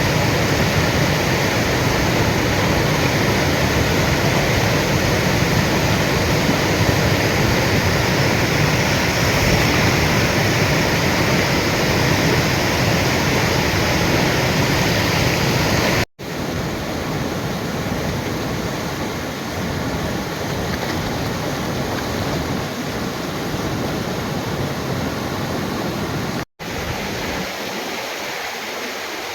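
Swollen river or mountain stream in spate after continuous rain: a loud, steady rush of water. It breaks off for an instant twice where shots are joined, and runs a little quieter after the first break.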